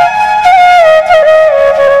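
Background music: a solo flute playing a melody of held notes that slide downward.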